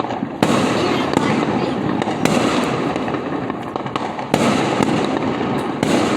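Fireworks going off in a dense, continuous crackle of pops and bangs, with a sharper, louder bang about every two seconds.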